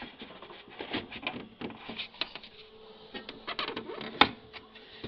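Plastic divider plate being slid and pushed into its slot in an air conditioner's styrofoam pan and sheet-metal cabinet: a run of irregular clicks, knocks and scrapes, the sharpest click about four seconds in.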